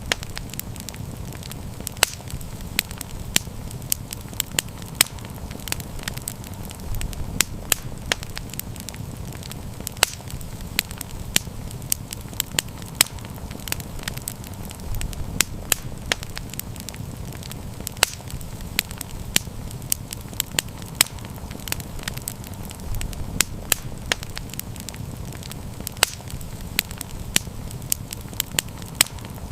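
Wood campfire burning with a steady low rumble and frequent sharp, irregular crackles and pops.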